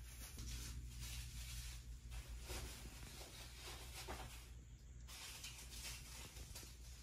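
Quiet room tone: a steady low hum with faint, scattered rustling and handling noises.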